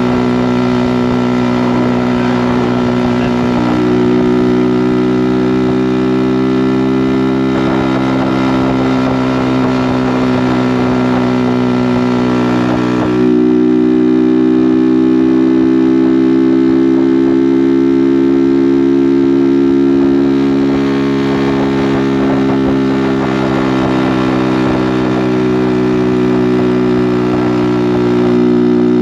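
Kawasaki Z125's single-cylinder 125cc four-stroke engine, fitted with a Delkevic aftermarket exhaust, running steadily under way at riding speed. The engine note shifts in pitch a few times, stepping up about four seconds in and changing again about halfway through, with road and wind hiss underneath.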